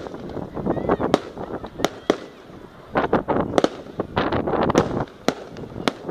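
Fireworks going off: sharp bangs at irregular intervals, with a dense run of crackling pops about three to five seconds in.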